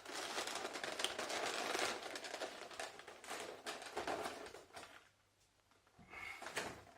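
Paper and packaging being handled at close range: dense rustling with small clicks and taps, thinning out after about two seconds to scattered ticks, a brief pause, then faint rustling again.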